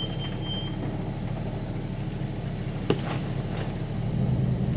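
Truck engine idling steadily, with one sharp click about three seconds in; the engine note gets a little louder near the end.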